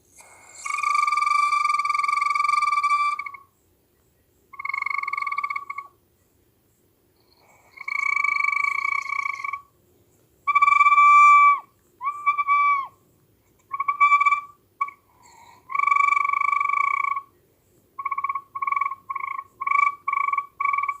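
Flute sounding one high note with a weird, croaky tone, blown in held notes of one to three seconds with gaps between, a few sagging in pitch as they end. In the last few seconds it turns to short repeated notes, about two a second.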